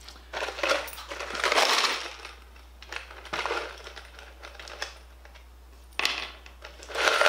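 Irregular rustling and scraping handling noises in several short bursts, with a few light clicks between them.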